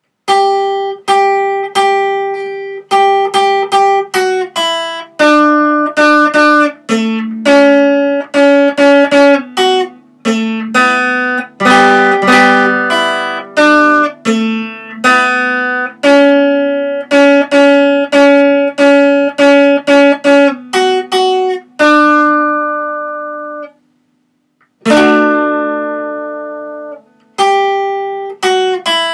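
Acoustic guitar picked note by note, with single notes and broken chords each ringing out and fading, and a short break near the end before the picking resumes.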